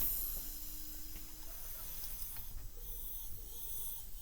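Compressed air hissing steadily out of a KamAZ truck's air dryer fed from a shop compressor, strongest at first and easing slightly. The hiss is the dryer's leak, which the mechanic puts down to a small fault in its lower, foreign repair-kit part.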